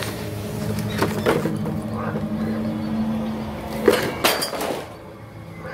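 Metal frame tubes and parts clinking and knocking as they are handled among cardboard packaging, loudest just before four seconds in, over a steady low hum that fades near the end.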